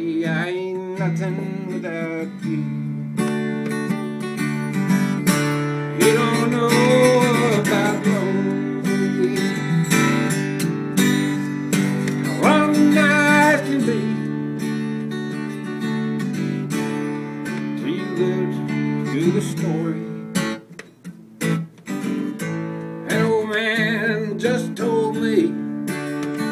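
A steel-string acoustic guitar strummed steadily, playing a country song, with a man's singing voice over it in places.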